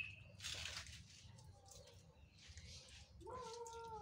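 Faint splashes of water being scooped from a plastic bucket and poured onto potted plants, twice. Near the end, a single long, even-pitched call.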